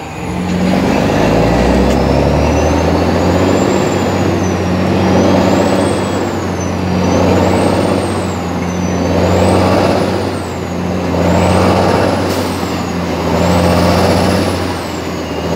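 International 9900i truck's diesel engine running under way, heard from inside the cab, swelling and easing about every two seconds. A thin high whistle rises and falls along with the swells.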